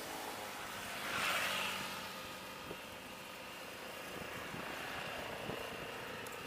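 Motorcycle engine running steadily at cruising speed, with wind noise over the microphone. A louder rush of noise swells and fades about a second in.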